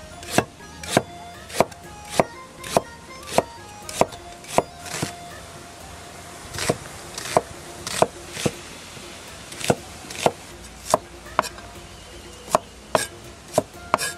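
A kitchen knife chopping scallion, ginger and onion on a cutting board, in slow, even strokes a little under two a second, with a short pause about halfway.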